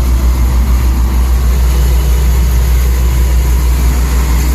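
John Deere 4840 tractor's turbocharged six-cylinder diesel engine running steadily with a loud, even low drone.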